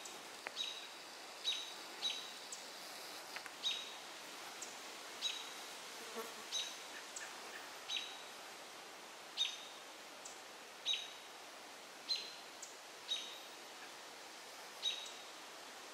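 American robins giving alarm calls: sharp, high notes that drop quickly in pitch, repeated about once a second. The calls are the robins' alarm at a great gray owl perched in their territory.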